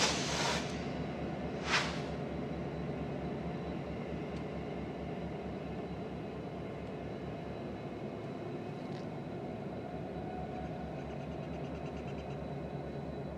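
Union Pacific diesel locomotives running with a steady, pulsing low rumble as they move slowly away. Two short, sharp hisses of air come right at the start and again just under two seconds in.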